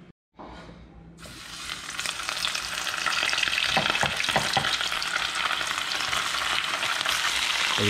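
Small flour-battered catfish frying in hot oil in a pan: a steady sizzle that starts about a second in and grows louder.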